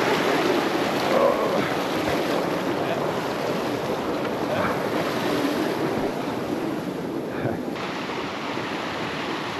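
Shallow rocky mountain stream running over stones, a steady rush of water that turns duller near the end.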